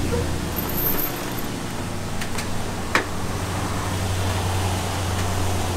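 A vehicle engine idling steadily with a low hum, and one sharp click about three seconds in.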